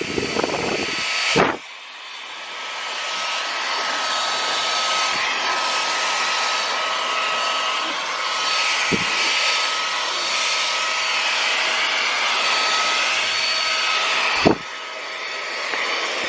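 Wertheim Evolution cordless stick vacuum running at a steady whine with a rush of air as it vacuums a couch. The sound drops abruptly and builds back up a second or so in, and drops again near the end.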